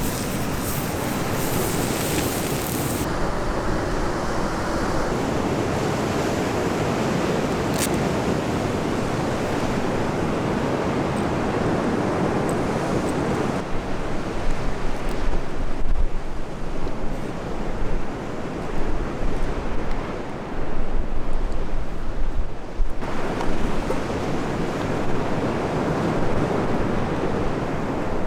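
Sea waves washing on the shore under a steady wash of wind. For several seconds around the middle, gusts buffet the microphone in uneven surges.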